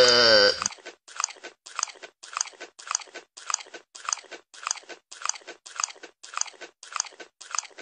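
The tail of a goat's bleat, falling in pitch, cuts off in the first second. Then come loud, evenly repeated chewing crunches, a little under two a second.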